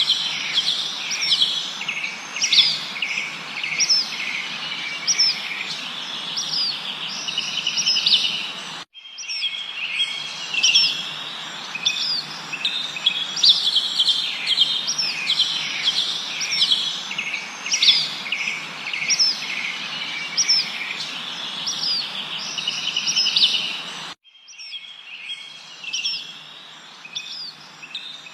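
A dense chorus of many songbirds chirping and whistling rapidly over a steady background hiss. The sound cuts off abruptly twice, about 9 and 24 seconds in, and starts again each time, like spliced or looped recording.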